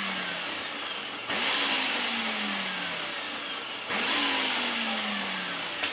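Nutri Ninja blender base with its dough bowl attachment pulsing, the blade spinning through dry flour mix. The motor runs in back-to-back bursts: it restarts just over a second in and again near four seconds in, its pitch jumping up at each start and then sagging.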